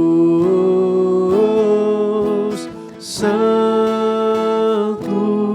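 Slow worship song with acoustic guitar and long held notes, changing chord about every one to two seconds.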